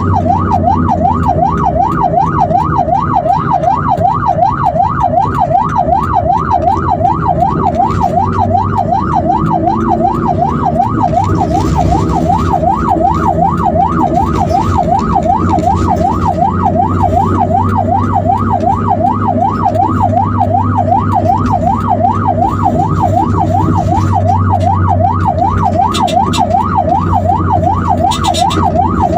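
Ambulance siren in a fast yelp, its pitch sweeping up and down about twice a second without a break, over a steady low vehicle and road rumble.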